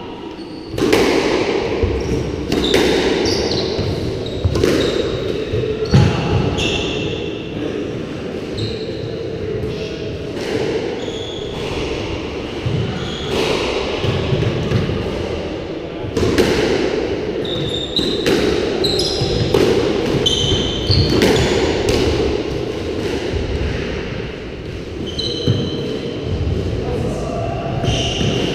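A squash rally: the ball cracking off racket strings and the court walls every second or two, with sneakers squeaking briefly on the wooden floor. The hits echo around the enclosed court.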